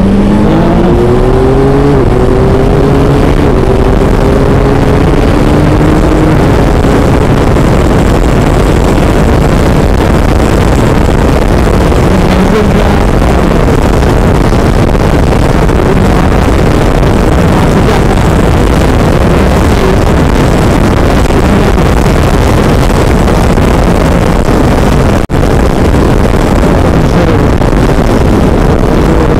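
Yamaha Tracer 9GT's 890 cc inline-three engine pulling hard under acceleration, its note climbing, dropping at an upshift about two seconds in, then climbing again. From about six seconds in, heavy wind rush at highway speed covers the engine.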